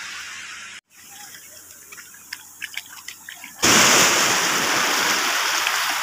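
Shallow seawater sloshing, cutting out abruptly just under a second in, then small drips and ticks, then a loud rush of splashing water starting about three and a half seconds in.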